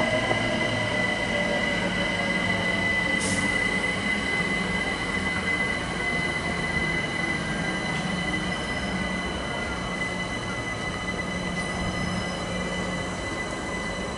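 London Overground Class 378 electric multiple unit moving along the track, its running noise carrying a steady high-pitched squeal that gradually fades as it draws away.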